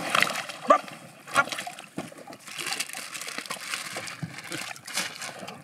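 Clear plastic bag rustling and crinkling as it is handled, with water splashing at the raft's edge.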